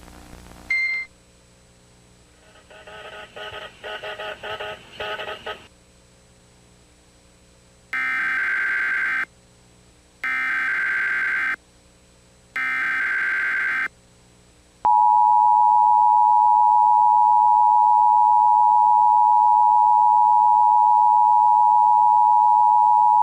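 Emergency Alert System tones: a short beep and a few seconds of stuttering, garbled tones, then three even screeching bursts of the SAME data header about a second apart. About 15 seconds in, the loud steady two-tone EAS attention signal begins.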